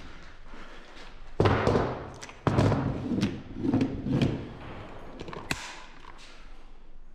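Airsoft rifle magazines knocked and set down on a wooden chipboard workbench by a gloved hand: a string of thuds and knocks, the loudest about a second and a half in and again a second later, then a single sharp click about five and a half seconds in.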